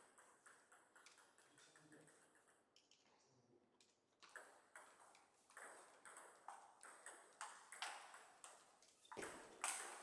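Table tennis ball clicking as it strikes the paddles and bounces on a Donic table: sparse faint ticks at first, then from about four seconds in a run of sharp ticks roughly twice a second as a new rally gets going.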